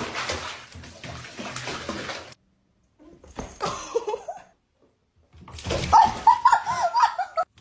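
Bathwater splashing as a cat thrashes in a tub. After a short break come rising-and-falling animal cries over more splashing, with a fast run of them in the second half.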